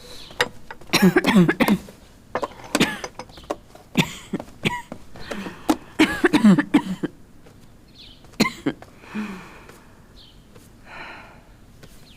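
A woman coughing hard in repeated fits, several loud coughs in quick succession, tailing off into fainter, breathier coughs near the end. It is a deep chest cough that the physician diagnoses as consumption (tuberculosis).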